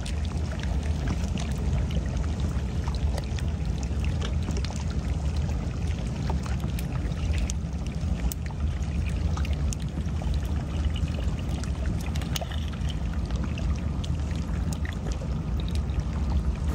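Water splashing and trickling among floating brash ice, with many small scattered clicks and crackles over a steady low rumble.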